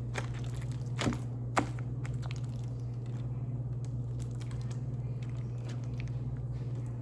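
Hands kneading and stretching sticky slime that is still activating, with a few sharp clicks and pops, the loudest about a second and a half in, over a steady low hum.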